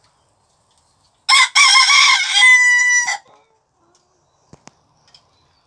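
Sebright bantam rooster crowing once, about a second in: a crow of roughly two seconds with a short break after its first note, ending on a held note. Two faint clicks follow about a second later.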